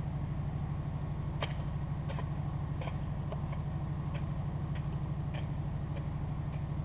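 Low, steady throbbing hum of the SyltExpress car ferry's engines running at its berth, with scattered faint ticks and clicks over it.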